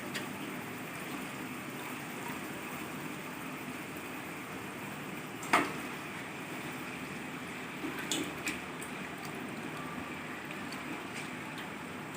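Chicken pieces sizzling in hot oil in a pan, a steady hiss, with one sharp knock about five and a half seconds in and a few lighter clicks around eight seconds in.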